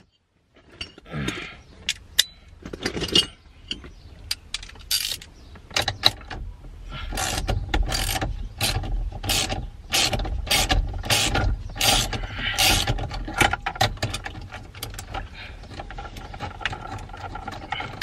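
Ratchet wrench clicking in a quick run of strokes as the 19 mm steering-wheel bolt is backed out. The clicks are thickest in the middle of the stretch and then thin out.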